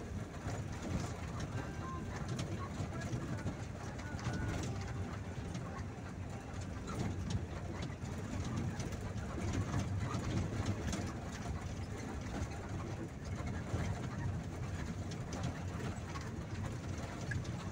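Steady low rumble of engine and road noise heard from inside a moving vehicle's cab.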